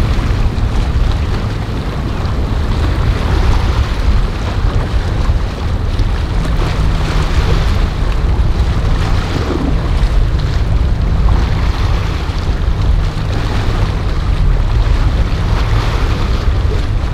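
Motor yacht's engines running steadily as a low hum while it cruises past, with the rush of its bow wake and wind buffeting the microphone.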